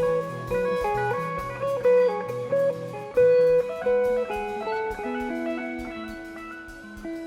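Instrumental rock music with electric guitar playing a melodic line over bass and drums.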